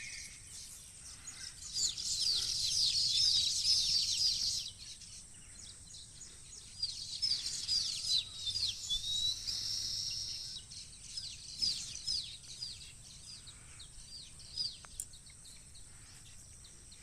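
Many small birds chirping together: quick high chirps that drop in pitch, thickest about two to four seconds in, then scattered and thinning toward the end. A faint steady high tone runs underneath.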